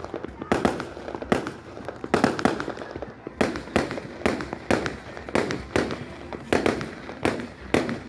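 Fireworks going off in rapid succession: a continuous barrage of sharp bangs and crackles, several a second, each with a brief echoing tail.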